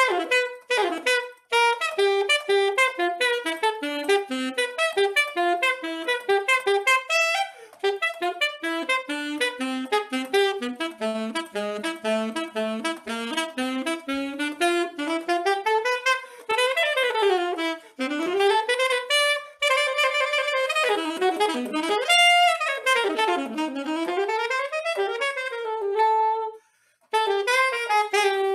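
Solo saxophone playing fast melodic runs and wide sweeping glides up and down. About three-quarters of the way through there is a brief pause, then a long held note.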